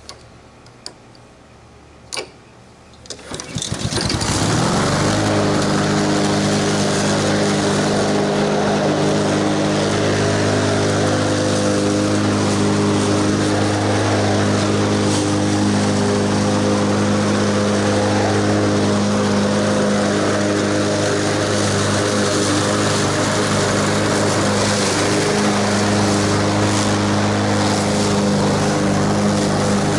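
Honda HRX217 lawn mower's single-cylinder engine being started: a few quiet seconds with a click, then the engine catches about four seconds in and runs steadily at mowing speed. Its blade is cutting through tall, thick grass with the mower set to mulch and bag.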